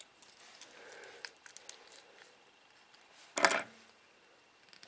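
Faint small clicks and scrapes of a flathead screwdriver working a battery wire back into a small plastic drone frame. A brief, louder rush of noise comes about three and a half seconds in.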